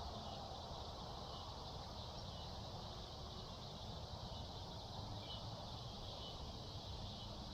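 Steady, high-pitched chorus of insects over a faint low rumble.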